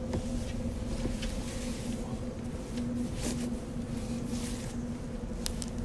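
Steady low rumble with a constant two-tone hum, and a few short, faint rustling noises.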